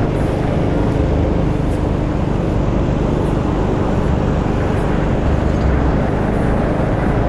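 Motor scooter being ridden along a road: a steady engine note under continuous rumble of wind and road noise.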